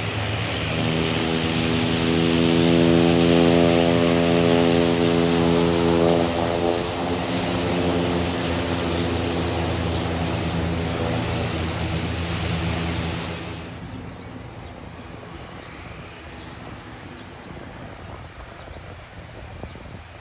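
Airbus C-295M twin turboprop running, its Pratt & Whitney PW127G engines and propellers giving a loud hiss over a steady low drone, loudest about three seconds in. About fourteen seconds in the hiss cuts off sharply and a quieter engine rumble is left.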